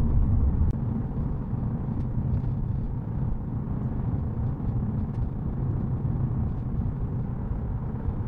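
Steady low rumble of a car driving at speed through a road tunnel, road and engine noise heard from inside the cabin.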